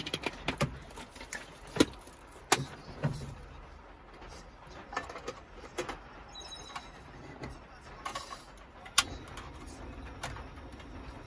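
Irregular knocks and clicks, a dozen or so, the sharpest about two seconds in and again near nine seconds, over a low steady background hum.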